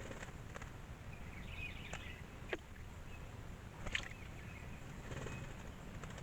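Small wild birds at a water hole: a faint burst of twittering chirps and a few sharp, very brief calls, over a low steady rumble of wind or background noise.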